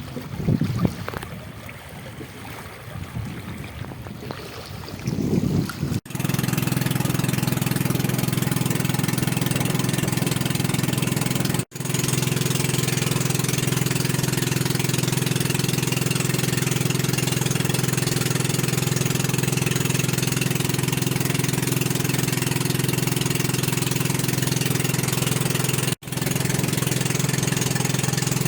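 Wind buffeting the microphone over water for about six seconds, then a motorboat's engine running steadily at an even speed, with a constant hum. The engine sound cuts out briefly twice.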